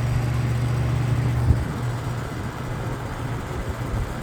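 Toastmaster 20-inch box fan with a McMillan motor running on high speed: a steady, loud motor hum with low rumble from the fan shaking. A single knock about a second and a half in.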